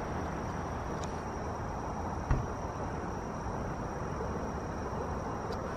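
Outdoor woodland background with a steady, thin high-pitched insect drone and a low rustling hiss, broken by a single knock about two seconds in.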